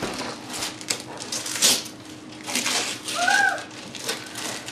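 Wrapping paper being torn and ripped off a present in repeated rough bursts, with a brief high child's vocal sound about three seconds in.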